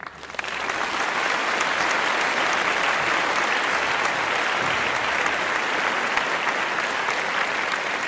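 Crowd applauding, a dense steady clapping that swells in over the first half second and holds.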